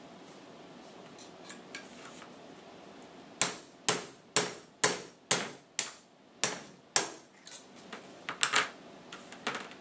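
Claw hammer striking a metal punch to drive out the pin that holds the barrel in the receiver of a Daisy 1903 Springfield replica drill rifle. About eight sharp, ringing metal taps come roughly two a second, followed by a few lighter clicks and knocks near the end.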